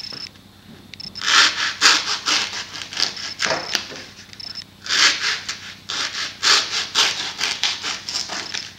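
Hacksaw sawing back and forth through pool-noodle foam in quick rasping strokes. The strokes come in two runs with a short pause about halfway.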